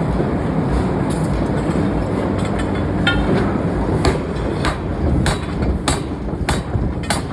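Heavy forging machinery running with a steady low rumble, and sharp metallic clanks starting about three seconds in and coming roughly every half second or so, the first one ringing briefly.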